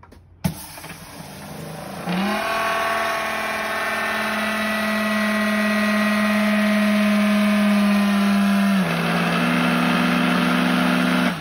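Clean N Roll paint roller cleaner, driven by garden-hose water, spinning a paint roller cover inside its green cylinder and spraying water into a plastic bucket. A click and hiss of water about half a second in, then a steady, loud whirring hum that rises to speed about two seconds in, drops a little in pitch near nine seconds, and stops abruptly at the end.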